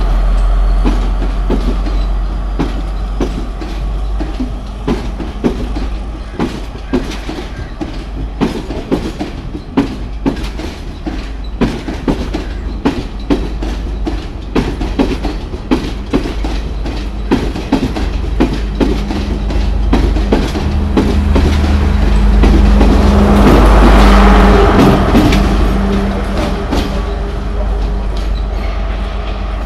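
Sri Lanka Railways diesel power set passing close at speed, its coach wheels clicking in a steady rhythm over the rail joints. From about two-thirds of the way in, the power car's diesel engine drone swells and is loudest about four-fifths through as the power car goes by.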